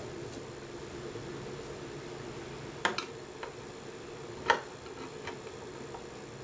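Screwdriver backing out the small screws of a chrome fuel-filler trim ring: a few light metal clicks and taps, a close pair about three seconds in and the sharpest one about a second and a half later, over a steady low hum.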